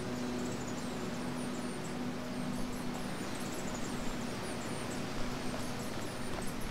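Outdoor park ambience: small birds chirping in quick, high, repeated calls over a steady low hum of distant traffic that fades out about halfway.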